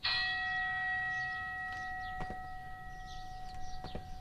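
A bell strikes once and rings on, slowly fading, marking the start of a 60-second exercise interval. Two dull thuds of feet landing from jump squats come a little over two seconds in and again near the end.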